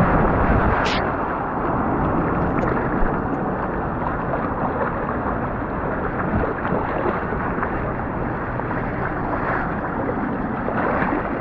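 Water rushing out of the water-slide tube exits and splashing steadily into the splash pool, with wind buffeting the microphone. A brief high-pitched sound cuts through about a second in.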